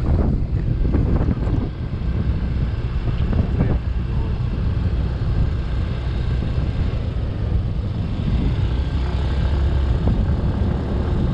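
Motorbike engine running steadily at cruising speed, with wind rushing over the microphone.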